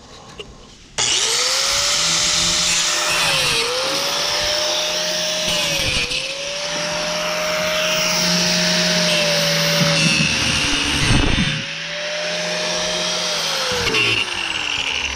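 A handheld electric power tool starts about a second in and runs hard. Its motor whine sags in pitch several times as it bites into the work, then winds down near the end.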